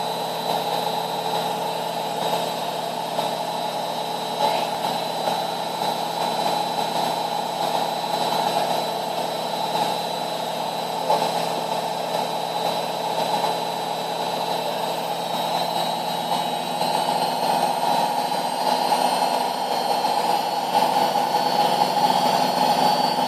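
Samsung Eco Bubble washing machine on its final spin: a steady mechanical hum and whine from the spinning drum and motor. About two-thirds of the way through, a faint high whine begins to rise.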